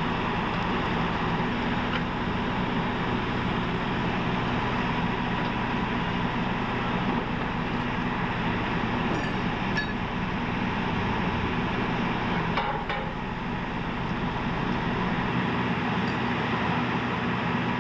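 Steady drone of the Restoration Express trailer's on-board generators and air conditioning running, with a low hum and a few faint clinks.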